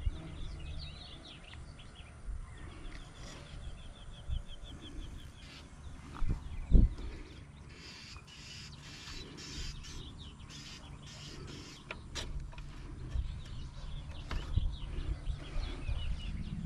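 Light clicks and knocks of a carburetor and its small parts being fitted onto a leaf blower's engine, with a sharper knock about seven seconds in and another near twelve seconds. Birds chirp in the background, with a short trill near the start.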